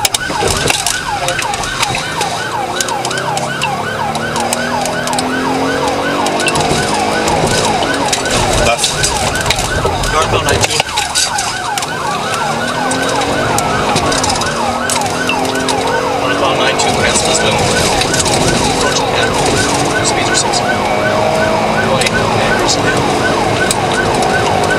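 Police car siren yelping in a fast, repeating up-and-down cycle, briefly sweeping slower about halfway through, while the cruiser's engine rises in pitch again and again underneath as the car accelerates.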